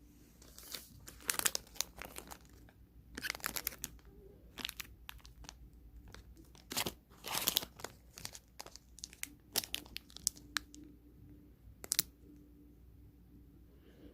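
Plastic snack-cake wrapper crinkling and tearing in irregular short rustling bursts.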